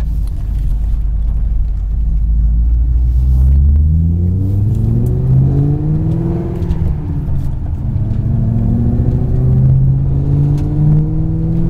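Supercharged 5.4-litre V8 of a 2007 Shelby GT500, heard from inside the cabin as the car pulls away. A steady low drone runs for the first few seconds, then the revs climb, drop back at a gear change about seven seconds in, and climb again.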